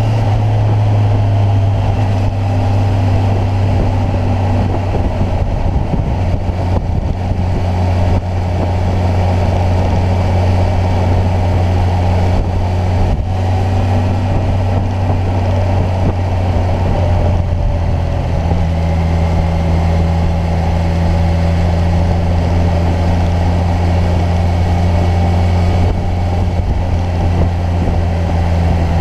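Kawasaki Ninja 1000's inline-four engine running at a steady cruise on the move. Its note shifts slightly about two-thirds of the way through.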